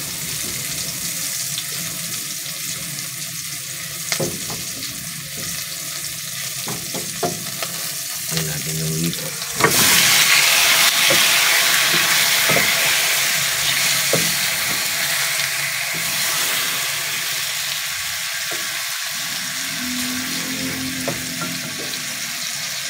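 Onion and garlic sizzling in hot cooking oil in a pot, stirred with a spatula that clicks against the pot now and then. About ten seconds in the sizzle jumps suddenly louder as pieces of catfish go into the hot oil, then eases slowly.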